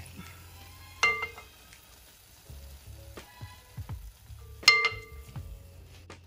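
Two sharp metal clinks, about a second in and near five seconds, each with a short ringing tone, as metal cooking utensils strike the pot, over the light sizzle of battered Oreos frying in hot oil.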